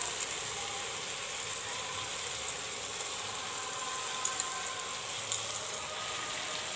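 Vegetables and spices frying in an aluminium pressure cooker, a steady sizzle, with a few light clicks of a steel spoon tapping the bowl as moong dal is scraped in, about four and five seconds in.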